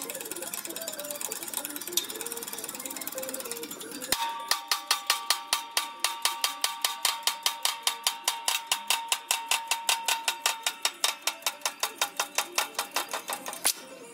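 Faint background music, then about four seconds in a loud, even clicking starts, about five clicks a second, with a steady ringing tone under it for the first half, and stops abruptly near the end. The clicking is the 30-ton hydraulic shop press working its ram down to press a seal into a Cincinnati shear hold-down.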